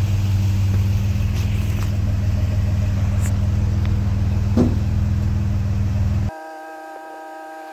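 A forklift engine runs steadily with a deep hum while the mast rail is lifted, with one short squeak about four and a half seconds in. It cuts off abruptly about six seconds in, giving way to background music of held notes.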